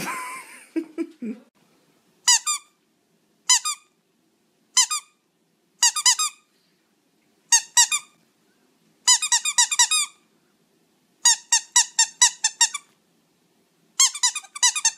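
Squeaky toy squeaking in short runs of rapid, high squeaks every second or two, as a pug bites down on it.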